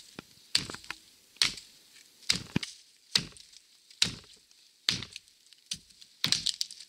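Wetterlings Bushman axe chopping into the base of a thin standing tree to fell it: about eight sharp strikes into the wood, evenly paced at a little under one a second.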